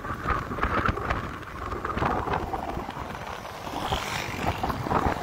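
Motorcycle riding along a road: wind rushes over the microphone, with the engine running underneath.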